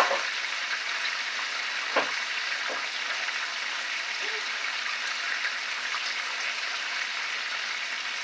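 Catfish nuggets frying in melted butter in a pan: a steady sizzle, with a light knock about two seconds in.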